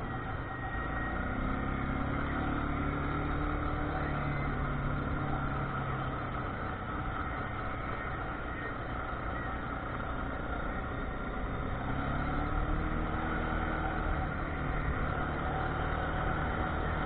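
A motor vehicle engine running at low speed over a steady rumble, its pitch rising a little and settling back twice.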